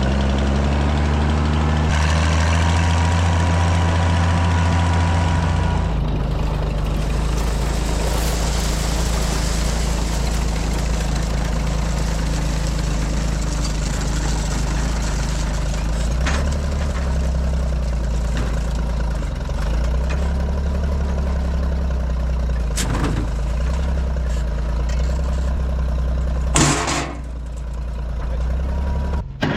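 Large farm machinery engine running steadily under load. Its note changes about six seconds in, and a few sharp knocks sound later, the loudest near the end.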